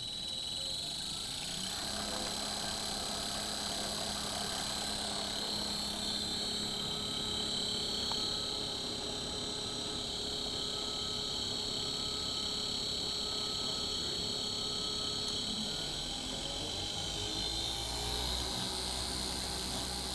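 Blender driven by a 1/4 horsepower three-phase AC induction motor on a variable-frequency drive, running through its programmed speed sequence and churning water in the glass jar. It makes a steady motor hum under a constant high whine; the pitch steps up about two seconds in and glides to a new speed near the end as the drive changes frequency.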